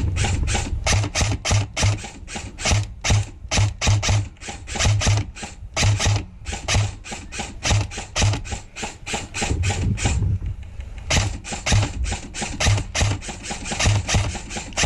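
Airsoft rifle firing single shots in quick succession, about three or four a second, with a short pause about ten seconds in.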